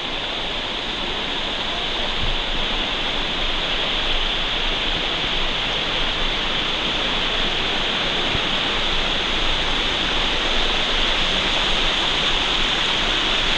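Dunn's River Falls' water rushing and splashing over the rock cascades, a loud steady roar of white water, close to the microphone. Near the end it cuts off suddenly.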